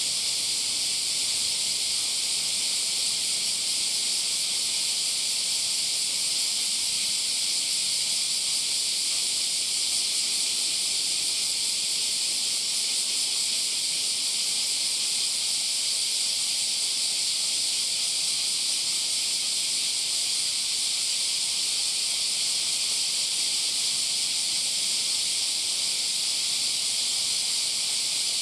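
A chorus of cicadas: a steady, high-pitched hiss.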